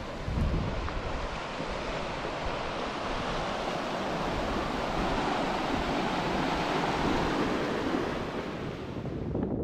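Fast glacial mountain creek rushing over rocks in whitewater, a steady dense roar of water. A brief low rumble of wind on the microphone about half a second in.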